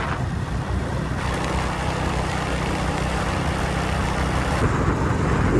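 Small motorcycle running steadily on the move, with wind and road noise on the microphone.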